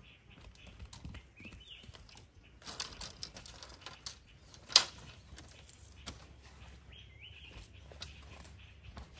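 Woven bamboo-slat panel being handled and set against a wooden frame: the slats rattle and clack, with a quick clatter about three seconds in and one sharp knock just before the middle, the loudest sound.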